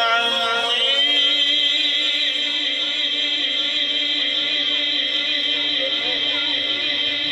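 A man chanting Quran recitation (tilawat) in long, drawn-out melodic phrases, amplified through a microphone and loudspeaker. The held notes waver slowly in pitch and ring on.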